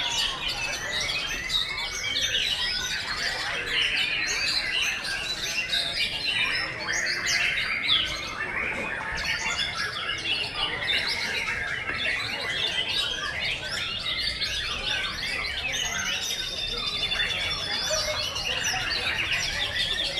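Many white-rumped shamas (murai batu) singing at once, a dense chorus of overlapping song phrases with no break.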